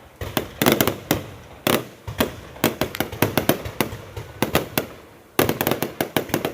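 Fireworks going off: a rapid, irregular string of sharp bangs and pops, several a second, in clusters with short lulls between them.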